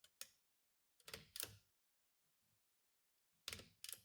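Faint mechanical clicks and knocks from a 1916 Royal 10 manual typewriter being worked by hand: a couple of clicks at the start, a small cluster about a second in, and a few more near the end.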